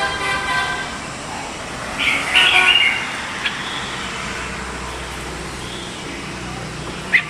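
Red-whiskered bulbul giving a short burst of chirpy notes about two seconds in and one sharp note near the end, over a steady traffic hum. A buzzy, horn-like toot sounds in the first second.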